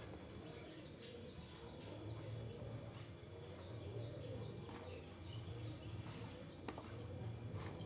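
Hands kneading sticky palm-fruit and wheat-flour dough in a steel bowl: soft, irregular pressing and squishing, with a few sharp clicks.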